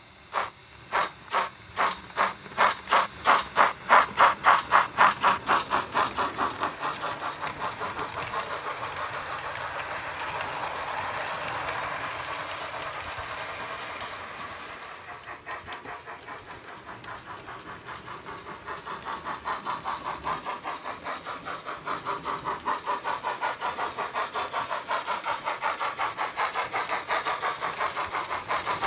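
Model steam locomotive's DCC sound decoder playing the exhaust chuffs of a GWR Dukedog 4-4-0 through its small speaker, quickening as the engine gathers speed until the beats run together. The chuffing fades about halfway through, then comes back louder near the end.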